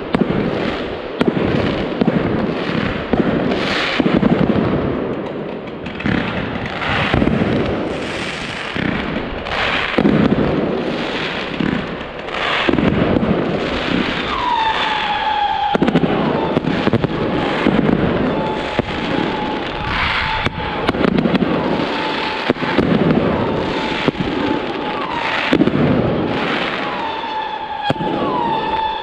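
Fireworks going off overhead: a dense run of bangs and crackling bursts, with a steady high tone setting in about halfway through.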